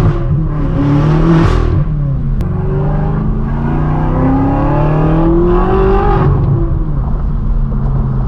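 Twin-turbo V8 of a tuned BMW M6 Gran Coupe with a straight-piped, catless exhaust, heard from inside the cabin, accelerating hard. A short rev comes about a second in and dips near two seconds. Then comes a long pull rising in pitch for about four seconds before the throttle lifts, and after that it runs steadily at lower revs.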